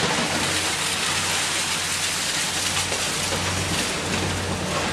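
Heavy diesel demolition excavators running, a steady low engine hum under a dense, even hiss that swells up at the start and eases off near the end.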